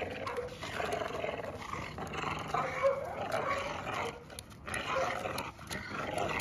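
Two American Bully dogs growling as they tug a ball between them in play, with rough, uneven growls that break off briefly a few times.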